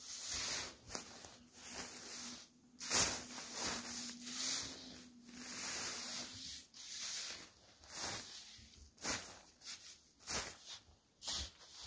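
Irregular rustling and crunching of shelter fabric and snow-packed ground as a pitched shelter is picked up and turned round, with footsteps in snow.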